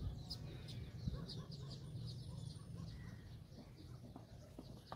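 Small birds chirping in the background: short, quick chirps repeating throughout, over a steady low rumble. A light knock near the end.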